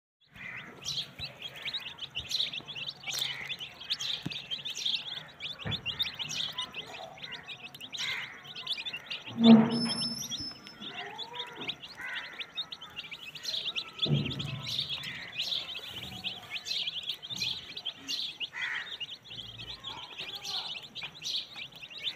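Many young chicks peeping continuously in a dense, high-pitched chorus as they feed. A brief, louder and lower sound breaks in about nine and a half seconds in, and a smaller one comes near fourteen seconds.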